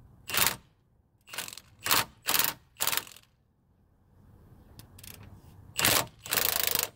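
Milwaukee cordless impact wrench hammering in a string of short trigger bursts, then a longer run near the end, spinning the nut off the long bolt through the rear lower control arms while the bolt head is held by a wrench.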